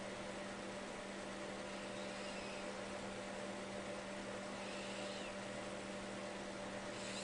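Faint high whistling snores, one about every two and a half seconds, over a steady electrical hum.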